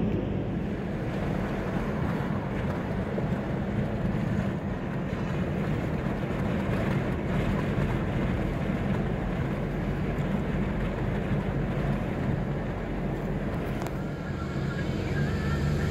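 Car driving: steady engine and road noise, with the engine note shifting near the end.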